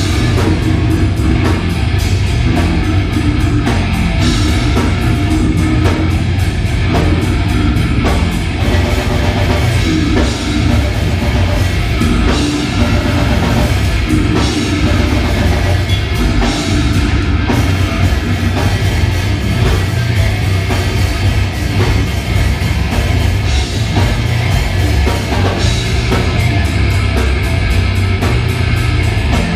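Live brutal death metal band playing loud: heavily distorted electric guitar over a pounding drum kit, dense and unbroken throughout.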